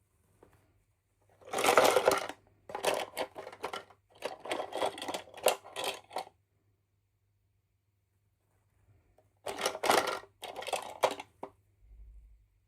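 Small plastic toy pieces and packaging being handled, with rapid clicking and rattling in two bursts: a longer one near the start and a shorter one near the end.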